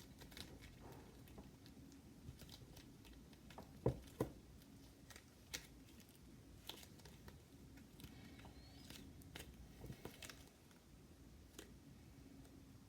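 Faint sticky crackles and small clicks of slime being stretched and pulled by hand to soften it, with two sharper clicks about four seconds in.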